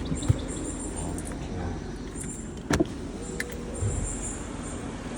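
Audi A8's engine idling steadily, with a few light clicks and a sharper knock a little under three seconds in.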